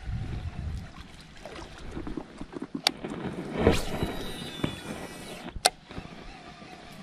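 A cast with a Daiwa baitcasting reel: a swish of the rod, then the spool whirring with a thin falling whine as it slows. A sharp click about five and a half seconds in marks the reel being engaged. There is another sharp click a little before the cast and a low rumble at the start.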